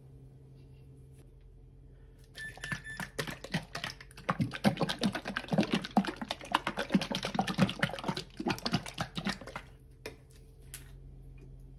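A plastic bottle of sesame dressing shaken hard, the dressing sloshing and the bottle rattling in quick pulses, to mix it before use. The shaking starts about two seconds in and stops about ten seconds in, and a light click follows.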